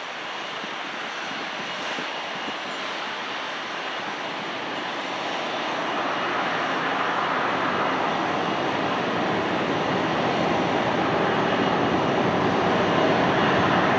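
Jet engines of a twin-engine widebody airliner taxiing, a steady rushing hum with a faint high whine, growing louder from about halfway through.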